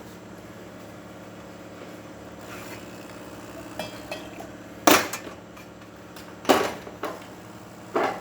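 A DeLonghi PrimaDonna Deluxe super-automatic espresso machine runs with a steady low hum while preparing a shot. It gives a few light ticks, then three sharp clacks: about five seconds in, at six and a half, and just before the end.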